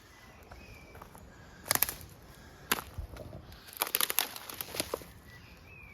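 Footsteps crunching through dry leaves and twigs on a woodland floor, in irregular clusters of crackles with the busiest stretch in the second half.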